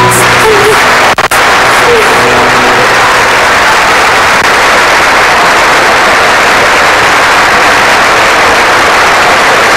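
Studio audience applauding, loud and steady, as the last notes of the song fade out in the first few seconds.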